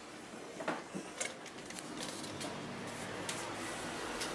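Scattered light clicks and rustles of a handheld camera being moved, over a steady faint background hiss that sets in about halfway through.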